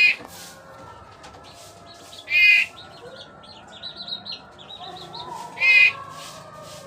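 Birds calling: a loud short call repeated three times, about three seconds apart, with faint quick high chirps in between.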